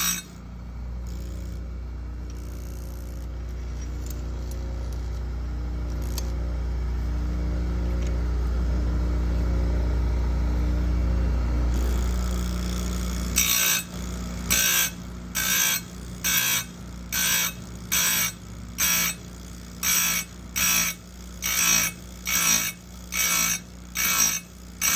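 Oregon 410-120 bench chain grinder's motor running with a steady hum. About 13 seconds in, the grinding wheel starts touching the chainsaw cutter in short repeated strokes, about three every two seconds, each a brief metal-on-stone grind as the tooth and gullet are sharpened.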